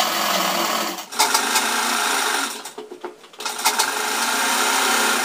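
Sewing machine running as it stitches a seam through cotton fabric. It runs in spurts, with a brief stop about a second in and a short pause around the middle before it runs again.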